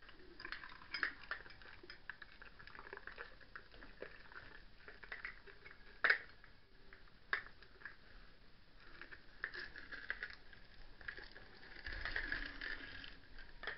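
Small dog crunching and nibbling a piece of carrot: irregular crisp crunches and clicks of teeth on the carrot, with a sharper crunch about six seconds in and another about a second later.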